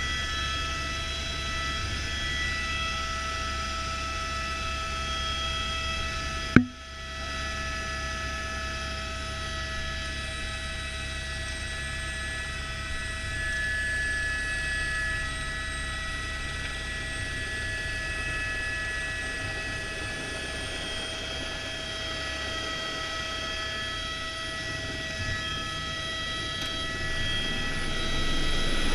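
Helicopter in flight heard from inside the cabin: the turbine's steady whine over the low drone of the rotor. A single sharp click about six and a half seconds in, and the noise grows louder near the end.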